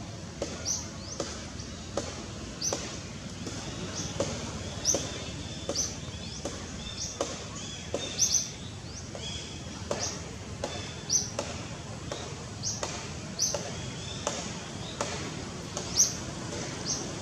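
A bird repeating a short, sharp, high chirp, irregularly about one to two times a second, over steady outdoor background noise.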